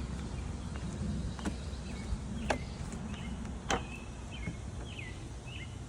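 Outdoor ambience: a steady low rumble of wind on the microphone, with birds chirping briefly and three sharp clicks.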